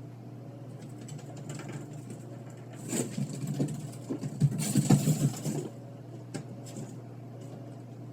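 A small electric motor whirring and rattling in uneven bursts for a few seconds, starting about three seconds in, over a steady low hum.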